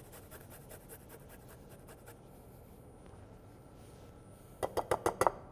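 Garlic clove grated on a microplane zester: a quick run of faint rasping strokes for about the first two seconds. Near the end comes a short series of sharp, louder clicks.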